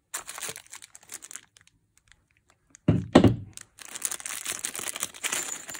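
Clear plastic parts bag crinkling as it is handled, with a single loud thunk about three seconds in. A short quiet gap comes before the thunk, and steady crinkling follows it.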